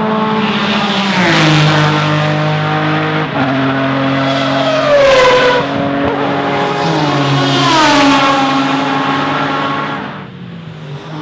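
Prototype race cars accelerating hard up the straight: the 1991 Jaguar XJR-16's turbocharged 3.5-litre V6 and another prototype running one behind the other. Upshifts drop the engine pitch about one and three seconds in, and each car's note falls in pitch as it passes, about five and eight seconds in.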